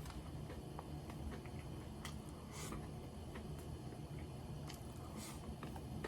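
A person chewing food, with many small mouth clicks and two short hissy smacks partway through.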